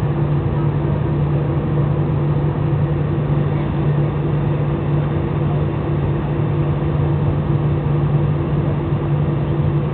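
Steady drone inside a jet airliner's cabin in flight: engine and airflow noise with a constant low hum.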